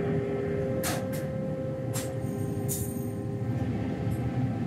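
Steady low roar of a fuel-fired metal-melting furnace with a constant hum, and a few short sharp clinks or hisses about one, two and nearly three seconds in as a ladle works the molten metal.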